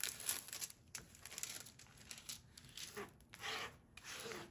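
Irregular rustling, rubbing and crinkling as hands flatten and slide a diamond painting canvas with its plastic cover film, with a few short scrapes near the end.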